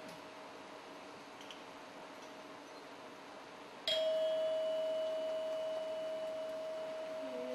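A bell-like metal instrument struck once about four seconds in, its clear tone ringing on and slowly fading. Before the strike a faint, steady held tone sounds underneath.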